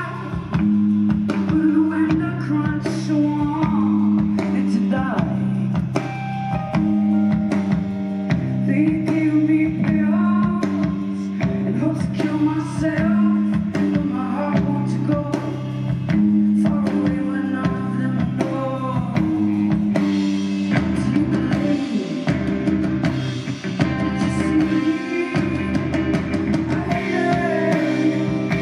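Live rock band playing: a woman's lead vocal sung into a handheld microphone over electric guitar and drum kit.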